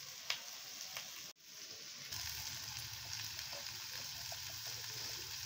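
Chopped capsicum and onion sizzling steadily as they fry in an aluminium kadhai over a wood fire, with a few faint crackles. The sound drops out for an instant about a second in, and a low hum joins shortly after.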